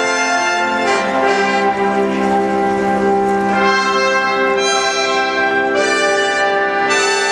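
Recorded orchestral film-score music, brass holding long chords that change a few times.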